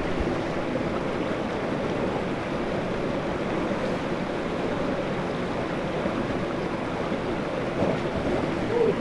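Mountain river water rushing steadily, an even wash of flowing water with no breaks.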